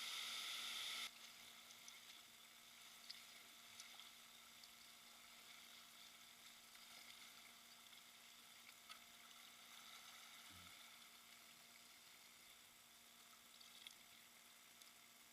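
Faint rushing river water, louder at first and dropping abruptly about a second in to a low hiss with a few light ticks.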